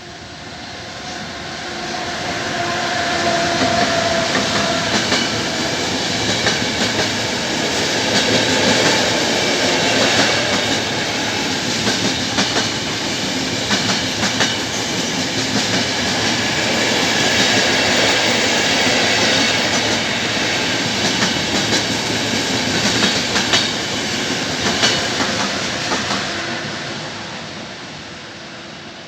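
Intercity night train hauled by an E402B electric locomotive passing at speed, wheels clattering over rail joints. It swells up over the first few seconds, rattles on steadily, and dies away near the end.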